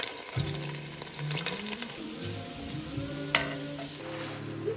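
Greens sizzling and crackling in a hot pan as they are stirred, with one sharp knock a little over three seconds in.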